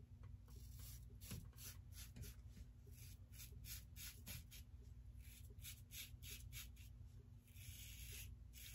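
Aylsworth DrakKant stainless open-comb safety razor scraping through a couple of days' stubble over shaving lather. Faint, quick short strokes, about three a second, with a few longer strokes near the end.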